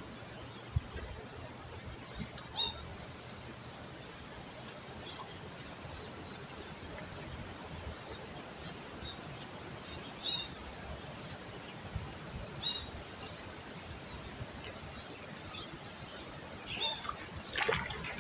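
Steady high-pitched insect drone with scattered short bird chirps. Near the end, splashing as a hooked fish thrashes at the water's surface.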